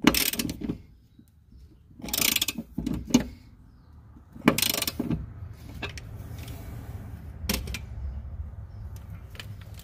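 Ratchet wrench clicking in short bursts while tightening the ball-joint nut of a car's rear upper control arm, with a last single click a few seconds later.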